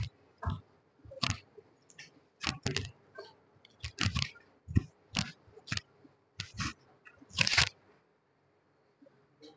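Irregular crunching, rustling bursts of cloth rubbed close to a clip-on microphone, about a dozen over the first eight seconds and then quiet: a towel wiped over the face next to the lapel mic.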